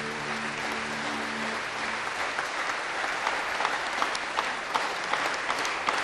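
Audience applauding in a concert hall as the orchestra's final held chord dies away in the first two seconds; the clapping then carries on on its own, with single sharp claps standing out.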